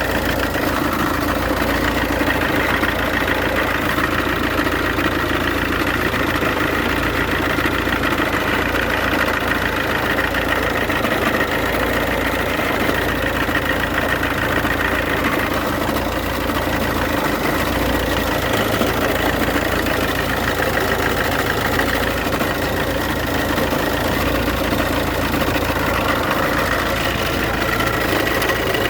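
Iveco Daily diesel engine idling steadily, with a constant whine running over the engine note.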